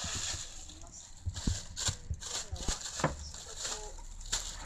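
Thin plastic bag rustling and crinkling as a kitten paws at it and dives under it, in a string of sharp crackles with a few soft thumps.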